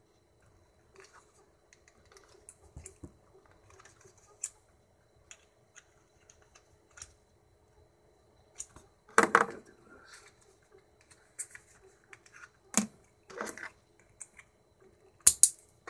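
Hard plastic action-figure parts clicking and knocking as they are handled and pressed together, with a few louder snaps in the second half.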